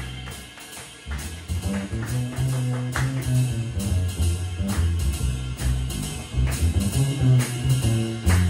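Live jazz combo playing an instrumental passage without vocals: the plucked upright bass's stepping low notes are the loudest part, with drum kit strokes and piano. The music thins out for about a second near the start, then the bass comes back in strongly.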